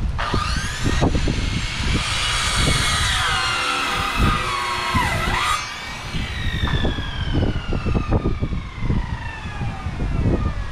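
A power tool's electric motor whining at speed, its pitch dipping sharply about halfway through and then slowly winding down, with gusty wind noise on the microphone underneath.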